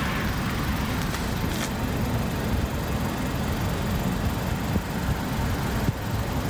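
A parked car idling, heard as a steady rumble and hiss that stays unchanged throughout.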